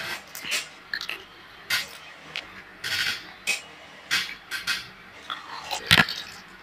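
Short, irregular rustling and scraping handling noises, a few a second, with a sharper knock about six seconds in.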